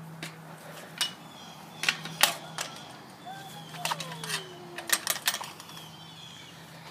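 Handling noise from a handheld camera being carried on the move: a dozen or so irregular clicks and knocks. Faint chirps, a falling whine in the middle and a steady low hum sit behind.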